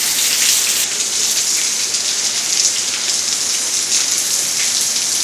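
Heavy thunderstorm rain pouring steadily: a dense, even hiss with individual drops ticking through it.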